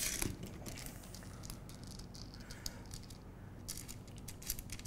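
Scattered light clicks and rattles of small metal parts being handled: aluminium brackets with preloaded screws and nuts being slid along an aluminium robot channel.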